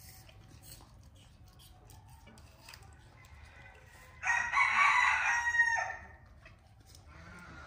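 A single loud, harsh animal call with several pitched layers, lasting almost two seconds, starting about four seconds in.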